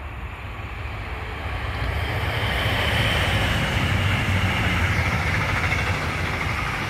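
Regional Express train of red double-deck coaches hauled by a class 146 electric locomotive passing through at speed: a rushing rumble of wheels on rail that builds to its loudest about halfway through, then eases as the last coaches go by.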